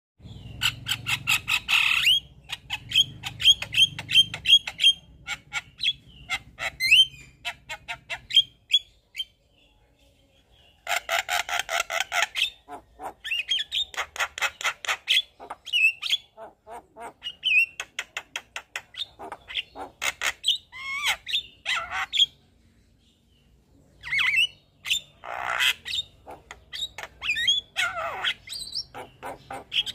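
Javan myna chattering and singing in long bouts: rapid runs of harsh clicks and squawks mixed with short whistled notes, with two brief pauses, about nine and twenty-two seconds in.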